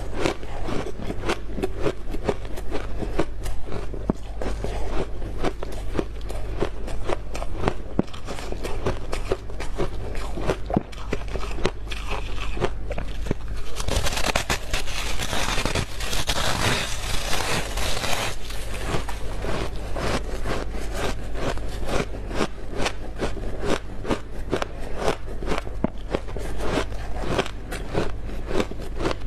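Freezer frost being bitten and chewed close up: a dense, continuous run of crisp crunches, with a louder, brighter stretch of a few seconds about halfway through.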